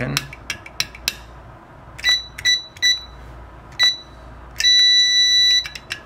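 Enforcer SK-1123 keypad's buzzer beeping: four short beeps, then one long beep of about a second, as the keypad and a hold-open door strike are tested. A few sharp clicks come in the first second.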